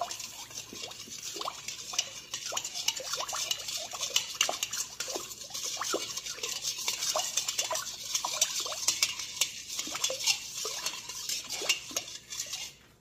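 Salt water being stirred briskly in a stainless steel mixing bowl to dissolve the salt: a steady swishing with many small splashes and clicks against the bowl. The stirring cuts off just before the end.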